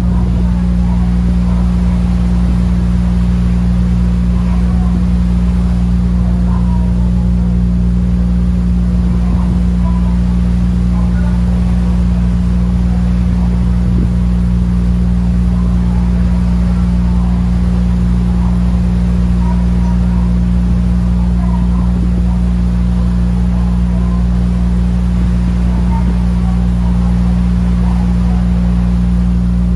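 Ferry's engines droning steadily, a loud, unchanging low hum made of several steady low tones.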